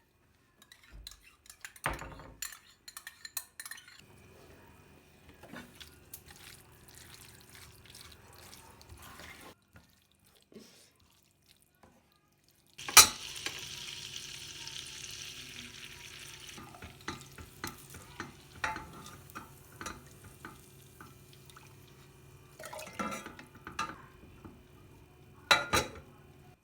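Kitchen cooking sounds: utensils clinking and scraping against pots and dishes, with a steady hiss of a few seconds starting with a sharp knock about halfway through.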